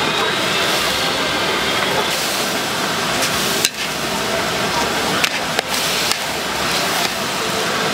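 Pad thai noodles stir-frying in a pan at a street stall: a steady sizzle, with a few sharp clacks in the second half.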